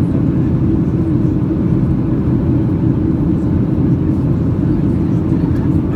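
Boeing 737-800 cabin noise in flight: a loud, steady low roar of airflow and its CFM56-7B turbofan engines, heard from inside the passenger cabin.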